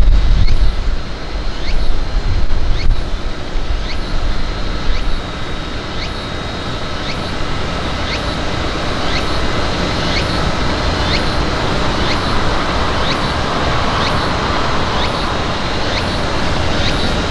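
Wind buffeting the microphone for the first few seconds, then steady outdoor background noise, with a short rising chirp repeating about once a second.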